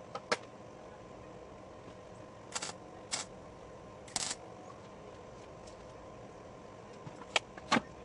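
Sharp metallic clanks and clinks from steel tubing and tools being handled on a steel welding table, about six separate knocks with two close together near the end, over a faint steady hum.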